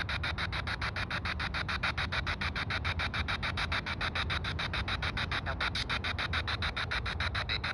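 Handheld ghost box (spirit box) sweeping radio stations, giving a fast, even chop of static at about six pulses a second.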